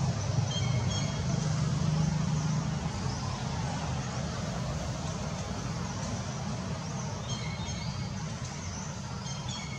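Steady low rumble of motor traffic, an engine running nearby, with a few short high chirps about half a second in and twice near the end.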